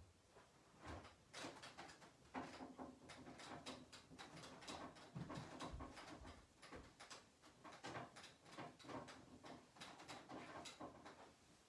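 Faint, quick, irregular rubbing strokes of a cloth wiping marker writing off a flat-screen TV's screen, with a few small knocks among them.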